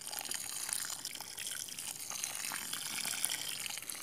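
Water sprinkling steadily from the rose of a plastic watering can onto freshly planted potting soil in a pot, soaking it until water pools on the surface.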